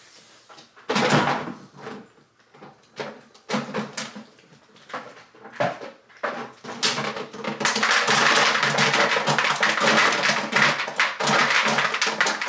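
A man with a mouth crammed with about 95 jellybeans making muffled, gagging vocal sounds in scattered short bursts, turning into a dense, continuous stretch of strained noises mixed with wet clicks from about two thirds of the way through, as he fails to fit them all in.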